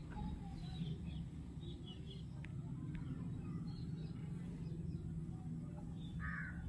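Quiet background with a steady low hum and a few faint, distant bird chirps, plus a couple of light clicks from handling the cardboard box.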